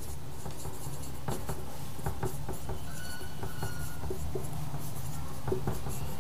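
Marker pen writing on a whiteboard: short scratchy strokes, with a brief squeak about three seconds in. A steady low hum runs underneath.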